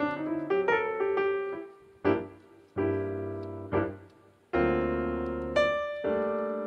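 Background piano music: a gentle melody of ringing notes that die away, with a few brief pauses between phrases.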